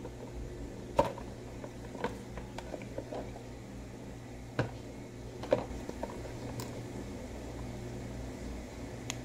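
Hard plastic toy cart parts being handled and fitted together, with the wheels pressed on: a few sharp clicks and knocks, the loudest about one second in and again around four and a half and five and a half seconds in. A steady low hum runs underneath.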